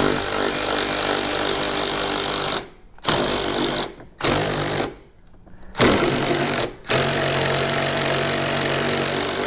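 Cordless impact wrench hammering on the 15 mm top nut of a 2009 Corvette's shock absorber in five runs with short pauses, the first and last about two and a half to three seconds long. The nut spins along with the shock shaft instead of breaking loose.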